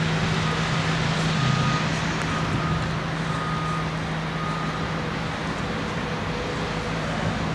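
A heavy truck or machine engine running steadily, with a faint beep about once a second over it, like a reversing alarm.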